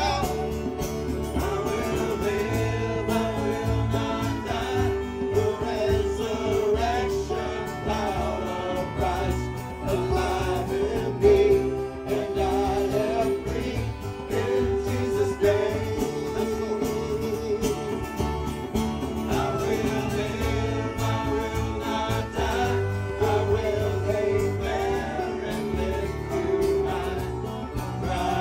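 Live gospel music: a choir singing over a worship band, with a bass line moving under the voices.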